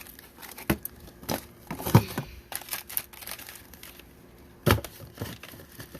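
Plastic bags of frozen food crinkling as they are shifted around in a packed freezer, with several sharp knocks of hard frozen packs against each other and the freezer walls. The loudest knock comes near the end.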